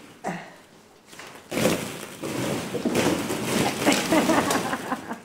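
Hollow plastic ball-pit balls clattering and rattling against each other as a person scrambles through a deep pit of them, a dense jumble of clicks that starts about a second and a half in.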